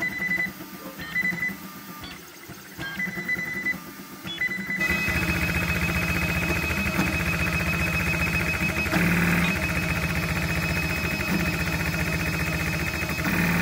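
A custom CoreXY 3D printer with four X/Y stepper motors, running a print. The steppers whine in clear steady tones that jump from pitch to pitch as the print head changes moves. From about five seconds in they give way to a louder, denser, steady whir.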